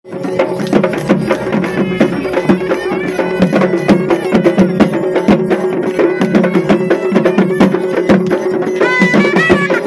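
Traditional Tamil folk drum music for a sami attam: fast, dense drumming with a steady sustained tone held underneath. A few high wavering notes come in near the end.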